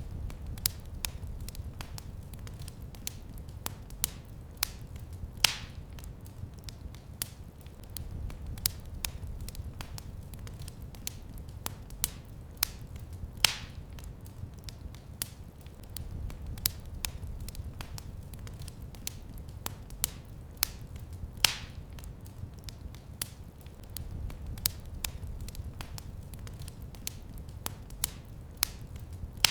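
Wood fire crackling in a fireplace: a steady stream of small, sharp crackles over a low rumble of the flames, with three louder pops evenly spaced through it.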